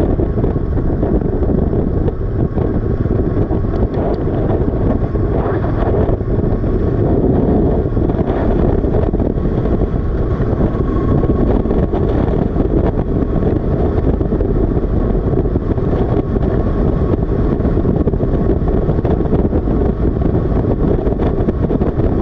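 Motorcycle riding at road speed, heard through a helmet-mounted microphone: steady wind rush over the engine running underneath.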